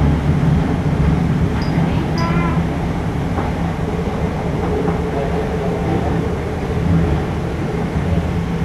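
Metro train running between stations, heard from inside the passenger car: a steady rumble with a constant low hum, and a short higher-pitched squeal or tone about two seconds in.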